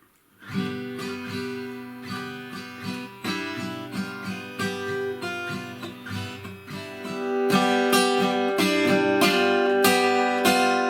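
Guitar played with the fingers, without a pick, working through a song intro on a G chord with a hammer-on figure. Single picked notes at first, then louder strumming from about two-thirds of the way in.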